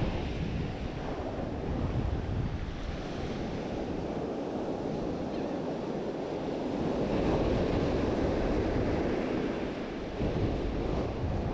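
Ocean surf breaking and washing up a sandy beach, a steady rushing that swells a little about two-thirds of the way through. Wind buffets the microphone with a low rumble.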